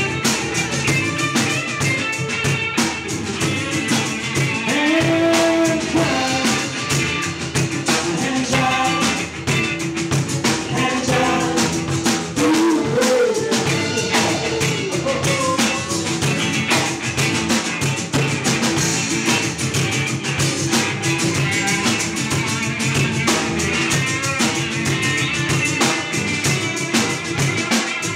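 Small live band playing: a drum kit keeping a steady beat under strummed acoustic guitars.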